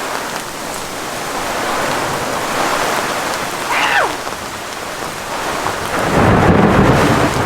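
Heavy rain hissing steadily, with a low thunder rumble swelling up about six seconds in.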